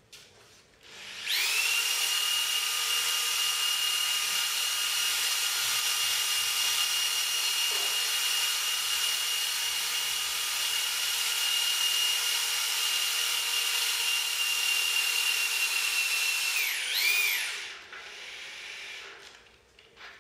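Power drill driving the screw of a motorcycle lift stand, raising the motorcycle: a steady whine held at one pitch for about fifteen seconds, then dipping and swooping in pitch as it winds down, followed by a quieter short run.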